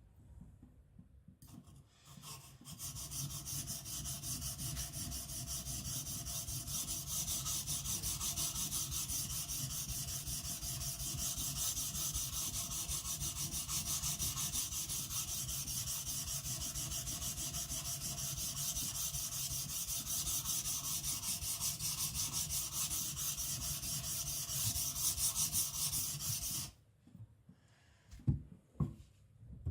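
Hard-steel kiridashi blade being rubbed back and forth on a coarse whetstone in quick, even strokes, grinding its flat back; the steel is very hard and the stone barely cuts it. The strokes start about two seconds in and stop suddenly near the end, followed by a few light knocks.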